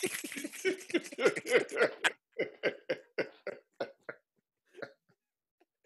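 People laughing hard in a string of short breathy bursts, about four a second, that fade out near the end.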